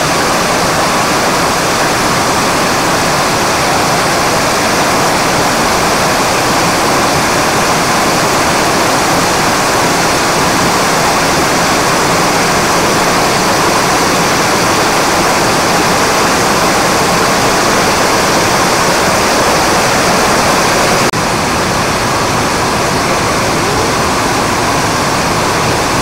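Steady rush of a wide, curtain-like waterfall about 10 m high, its water splashing into the shallow plunge pool below. The level dips slightly a few seconds before the end.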